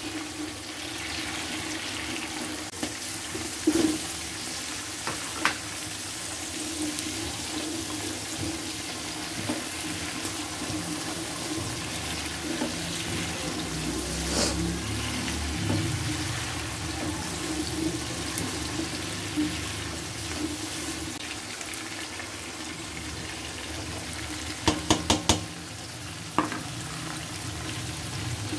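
Vegetables sizzling and crackling in hot oil as they are stir-fried in a pan, with a wooden spatula scraping through them. Now and then the spatula knocks against the pan, including a quick run of four knocks near the end.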